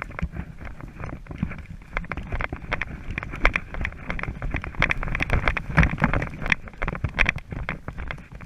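Footsteps crunching on rough ground with equipment knocking and rattling, a dense run of irregular crunches and knocks over a low rumble of wind on the microphone.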